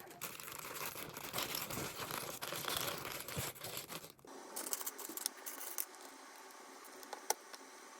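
Packaging being torn and crinkled for about four seconds, then the sound cuts to a quieter room with a few light clicks and one sharper click near the end.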